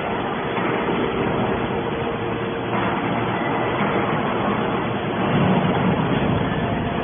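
Hydraulic scrap-metal baler running: steady machine noise with a constant hum, swelling slightly about five seconds in.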